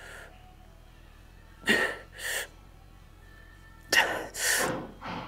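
A weightlifter's sharp, forced breaths during dumbbell lateral raises: short breaths in pairs, one pair about every two seconds in time with the reps, with a brief one near the end.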